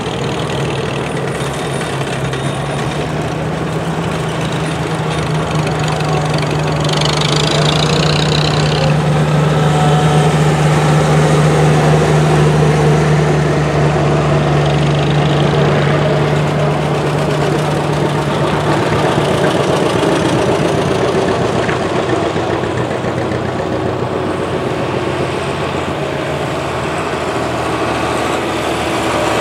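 Engines of antique farm tractors, among them John Deere two-cylinder models, running as the tractors drive past one after another. A steady low engine note grows louder around the middle as one passes close.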